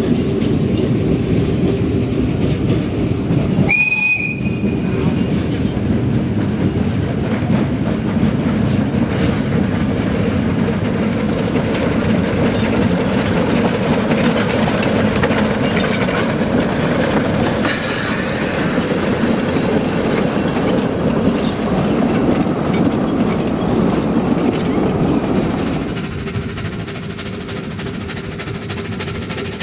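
Two narrow-gauge steam locomotives double-heading a short passenger train, running past with their carriages. One short, single-pitched steam whistle blast sounds about four seconds in, and the train sound falls quieter near the end.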